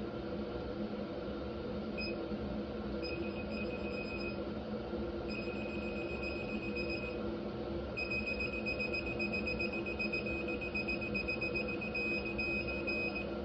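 Electronic torque wrench beeping as a head bolt is pulled up to its 45 ft-lb target torque: a steady high tone in several stretches, the longest held for about five seconds near the end, over a steady low hum.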